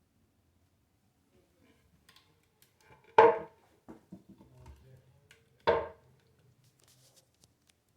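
Two hard clunks with a short ringing, about two and a half seconds apart, among small clicks and knocks: the toilet being handled just before it is flushed.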